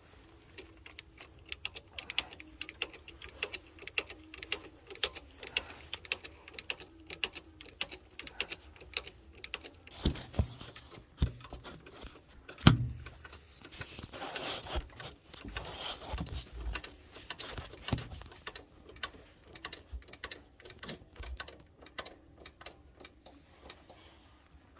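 Hand tools clicking and clinking against metal tractor parts in quick, irregular strokes, several a second, with a heavier knock about halfway through.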